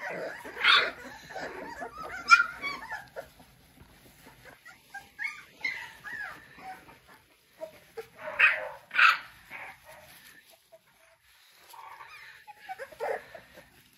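Three-week-old American Bully puppies whimpering and yipping in short, high-pitched cries, with a cluster near the start and two louder cries about eight and nine seconds in.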